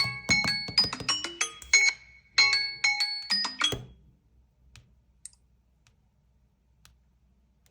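Smartphone ringtone or alarm tone playing a quick melody of short, bright pitched notes, which stops about four seconds in; a few faint clicks follow.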